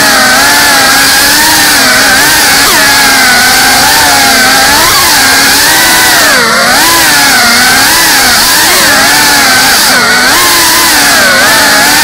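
GEPRC Cinelog 35 ducted cinewhoop quadcopter's brushless motors and propellers whining. The pitch swoops up and down constantly as the throttle changes while it is flown.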